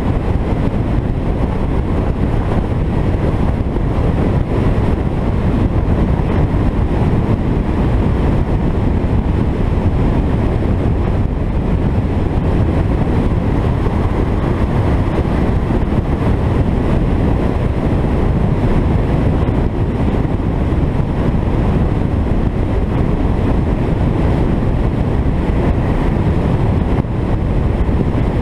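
Alfa Romeo 33 driving at road speed: a steady rumble of engine, tyre and wind noise, with wind buffeting the microphone.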